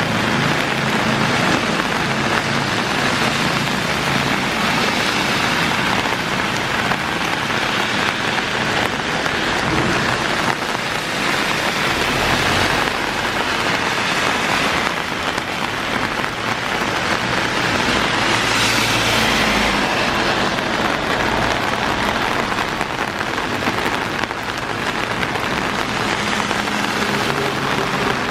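Heavy rain pouring steadily, with a low vehicle engine hum at the start and the hiss of a car's tyres on the wet road swelling briefly about two-thirds of the way through.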